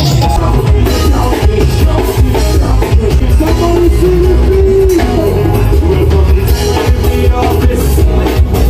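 Loud music with a singing voice over heavy bass and a steady, driving drum beat.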